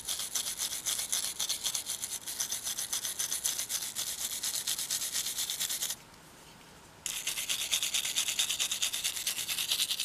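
A small steel-bristle brush with brass-coloured bristles scrubbing rapidly back and forth in the stamped lettering of a pocket knife's metal bolster: a quick, high-pitched scratching. It stops for about a second just past the middle, then starts again.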